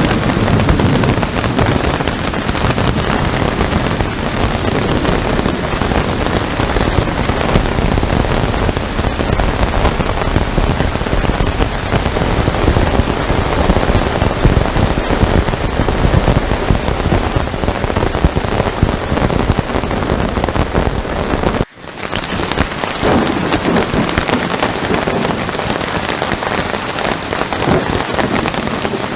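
Heavy rain falling steadily, a dense even patter. It cuts out for an instant about three-quarters of the way through, then resumes.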